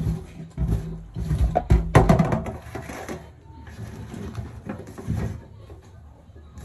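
Irregular knocks, scuffs and rustles of hands sweeping dry jicama peelings and moving a plastic bowl on a metal sink counter close to the microphone, loudest about two seconds in.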